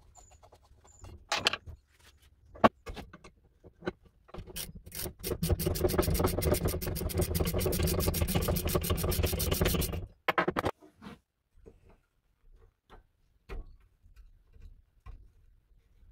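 Socket ratchet clicking rapidly for about five seconds as it turns a nut on an old bathroom scale's frame. A few sharp knocks and clicks of tools on metal come before and after.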